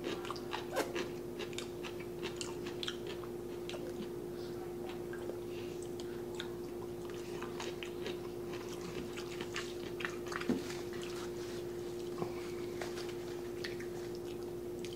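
Close-miked chewing of jjajangmyeon (black bean noodles): a run of small, wet mouth clicks and smacks, over a steady hum.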